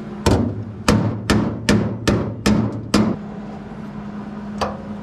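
Hammer striking sheet metal: seven quick, sharp blows, about two or three a second, then one more blow about a second and a half later. A steady low hum runs underneath.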